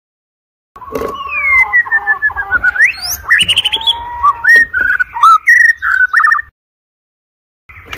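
White-rumped shama singing a fast, varied song of loud whistled notes, sliding glides and rapid trills. The song starts about a second in, cuts off abruptly after about six seconds, and starts again right at the end.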